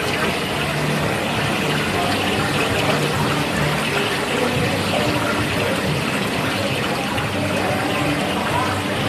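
Steady wash of bubbling water from the aerators in live-seafood tanks, with indistinct background chatter mixed in.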